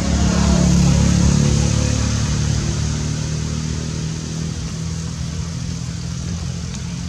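A motor vehicle's engine running. It is loudest about a second in, then fades slowly, as if passing by.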